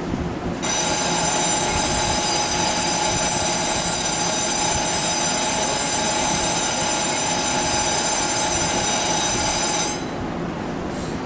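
Electric platform bell ringing continuously for about nine seconds, a loud, steady, high ringing that starts abruptly about half a second in and cuts off near the end; on TRA platforms this bell signals that the train is about to depart.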